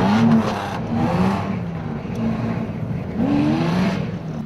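1996 Toyota Tacoma's engine running and revved briefly three times, the pitch rising and falling each time, as the pickup is driven into its parking spot.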